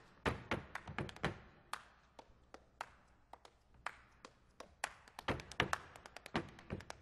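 Body percussion solo: sharp hand claps and slaps on the chest and legs in a quick, shifting rhythm. The hits come thick in the first second or so and again about five seconds in, with sparser single hits in between.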